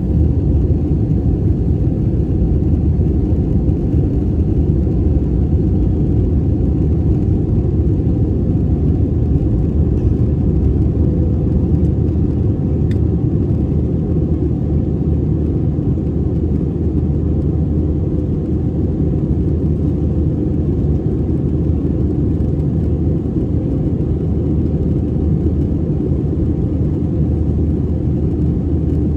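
Airliner cabin noise in flight: a steady low rumble of jet engines and airflow, unchanging throughout, with one faint click about halfway through.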